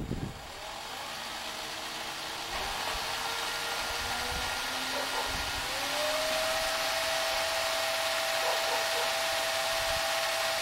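Cordless drill spinning a 1969 VW Beetle speedometer through its cable input, running steadily. Its whine climbs in pitch about six seconds in as the speed goes up, then holds, and the freshly oiled speedometer mechanism turns along with it.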